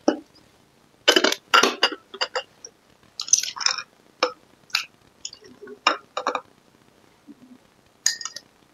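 Metal spoon clinking and scraping against glass bowls while scooping wet green lod noodles from one bowl into another: a string of short, sharp, irregular clinks and scrapes, the loudest about one to two seconds in.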